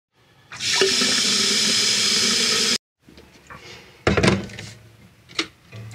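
A loud, steady hissing rush that cuts off abruptly, followed by quieter galley handling noises: a sharp clunk about four seconds in as an electric kettle is handled, and a lighter click near the end.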